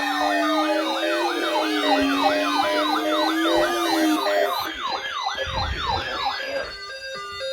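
Electronic siren yelping rapidly, about four sweeps a second, layered with a slowly falling wail and a steady low tone. The layers drop out between about four and seven seconds in, with a brief low rumble near six seconds.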